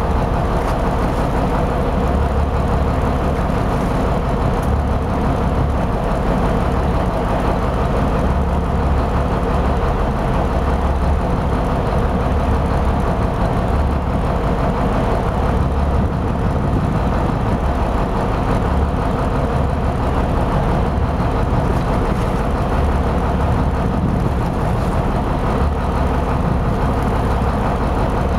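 A fishing boat's engine running steadily at a low, even idle, a constant low drone with no change in pitch or level.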